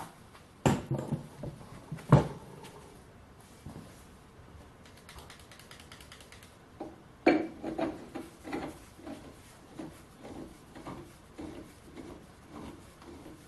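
Metal clanks and knocks of steel parts being handled while the freshly turned piece is test-fitted into a steel pipe. Two sharp clanks come in the first couple of seconds and another about seven seconds in, followed by a run of lighter knocks about two a second.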